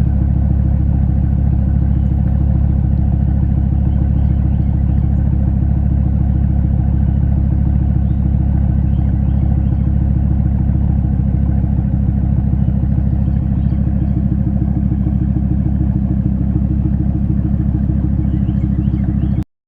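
Vehicle engine with a new exhaust idling steadily after a cold start, a deep, even exhaust note. The sound cuts off suddenly near the end.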